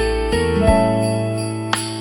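Background music: held, bell-like pitched notes over a steady bass line, changing every half second or so, with a bright chime-like strike near the end.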